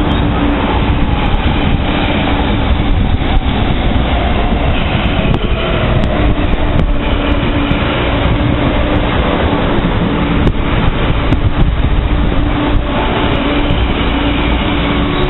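KCR East Rail MLR electric multiple unit pulling away from the platform and rolling close past, with loud, steady running noise. A low hum runs under it, and scattered sharp clicks come from the wheels.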